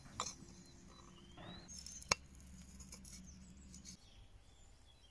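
Faint clicks and taps from a small brass spirit burner being handled, with one sharper metallic click about two seconds in. Birds chirp faintly in between.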